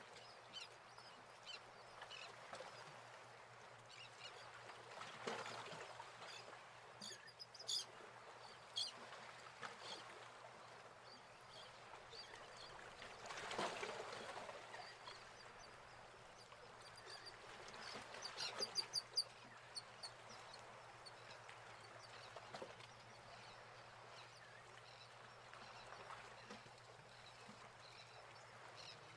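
Faint background ambience: a steady low hiss with a light hum, broken by scattered short high chirps in quick clusters, most about eight seconds in and again around nineteen seconds, and a brief swell of noise near the middle.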